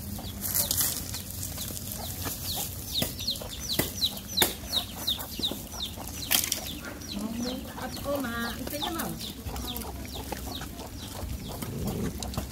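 Dogs and puppies eating from a metal bowl, with scattered sharp clicks and chewing. Through the middle a bird gives a run of short, high, falling chirps, about three a second.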